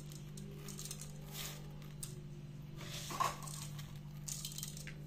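Dry basmati rice grains rustling and pattering as a hand scoops them up and lets them fall back into a stainless steel pot, in a few soft brief pours, the loudest about three seconds in. A steady low hum runs underneath.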